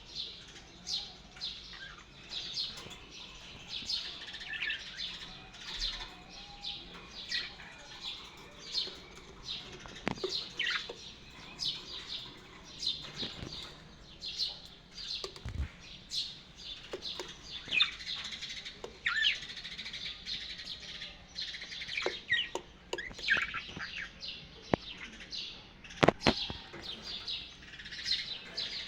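Pet birds, among them an Australian parrot, chirping and twittering in many short, high chirps, with a few sharp clicks, the loudest a couple of seconds before the end.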